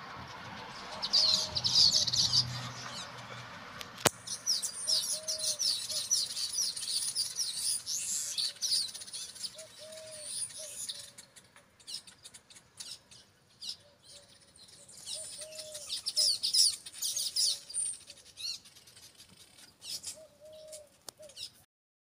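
A colony of weaver birds chattering at their hanging woven nests: several bouts of fast, high-pitched chatter, broken by short pauses. A lower, short note repeats at intervals through it.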